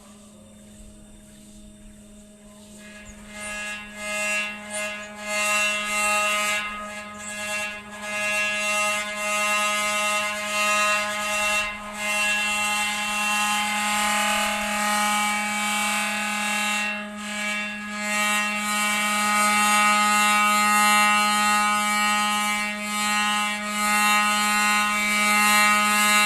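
Metal resonating instrument set ringing by rubbing it with the hands: a steady low hum with many ringing overtones builds up about three seconds in and stays loud, under a rough, scratchy rubbing noise.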